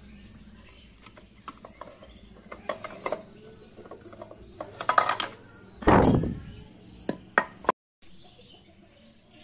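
Metal clinks, taps and knocks as the cylinder head cover of a Suzuki Satria FU motorcycle engine is worked loose and lifted off by hand, with one heavier clunk about six seconds in.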